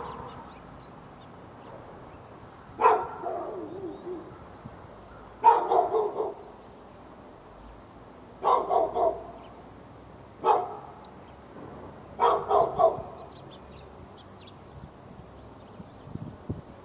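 A dog barking in single barks and quick runs of two to four, a few seconds apart, falling quiet about two-thirds of the way through. Near the end, wind rumbles on the microphone.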